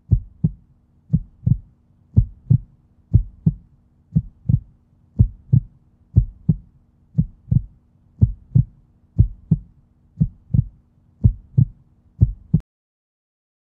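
Heartbeat sound effect: paired low thumps, lub-dub, about one beat a second, over a faint steady hum. The beat stops near the end.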